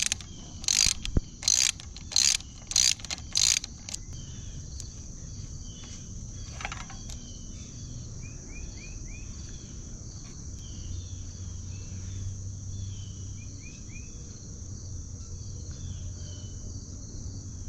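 Ratchet on a 12mm socket clicking in a quick series of about six strokes, loosening the front brake caliper bolts on a Honda CR125. It falls quiet after about four seconds, leaving a steady high drone of insects.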